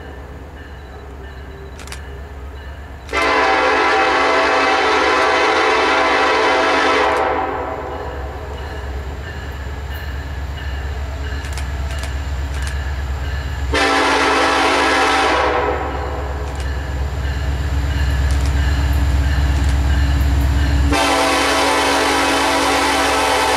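Norfolk Southern diesel freight train approaching, its locomotive's multi-note air horn sounding a long blast, a short one and another long one, the grade-crossing signal pattern. Between blasts the low rumble of the diesel engines grows louder as the train nears.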